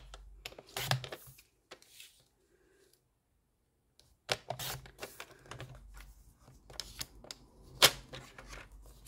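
Stampin' Up paper trimmer cutting patterned designer paper: the sliding blade scrapes through the sheet in strokes, with paper shuffled and slid between cuts. A short lull about two seconds in, and a sharp click near the end that is the loudest sound.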